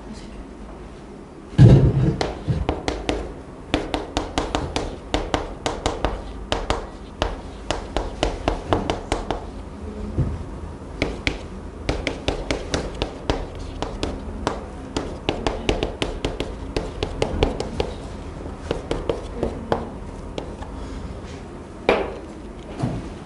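Chalk writing on a blackboard: a quick, irregular run of taps and short strokes, with a louder thump about a second and a half in and a brief pause about halfway through.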